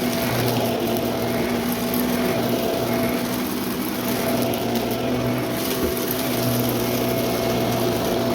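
Vacuum cleaner running steadily with its brushroll spinning: a constant motor hum, with a fine crunch of small debris being picked up.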